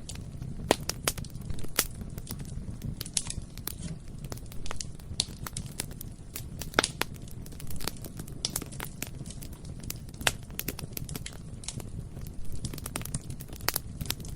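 Bonfire burning: irregular sharp crackles and pops of burning wood over a steady low rumble of the flames.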